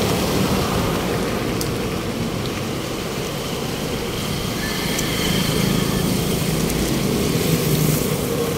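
Road traffic: vehicle engines running steadily, with a constant rush of road noise.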